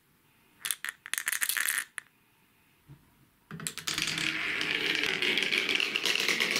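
A handful of small balls rattling in a plastic cup for about a second, then, from about three and a half seconds in, poured out and rolling down a marble-run track as a steady clattering roll full of rapid little clicks.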